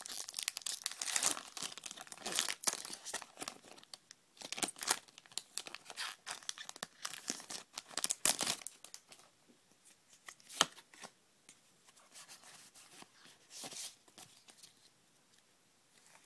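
Foil wrapper of a Pokémon trading card booster pack being torn open and crinkled, with dense crackling through the first half. After that come lighter rustles and a few clicks as the cards are handled.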